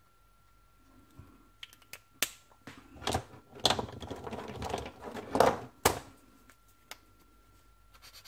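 Plastic marker pens clicking and rattling as markers are capped, set down and picked out of a pile: scattered clicks, then a busy run of clicks and rattles for about three seconds that ends on a sharp click.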